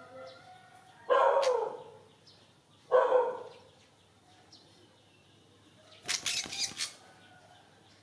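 Two loud, short animal calls about two seconds apart. Then, about six seconds in, a second of rapid rustling and fluttering, like a small bird's wings flapping against the hand that holds it.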